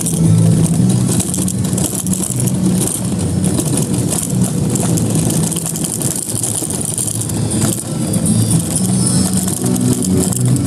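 Car engine running and road noise while driving, the engine note rising and falling with speed.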